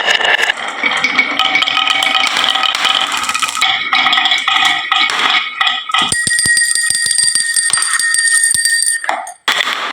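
Marbles clattering down a wooden marble-run slope: a dense rattle of clicks and knocks. From about six seconds in, a steady bell-like ringing sits under the clicks, and the sound drops out briefly near the end.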